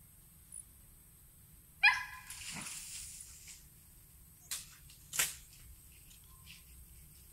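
A dog barks once, sharp and high, about two seconds in. Two short sharp clicks follow a few seconds later.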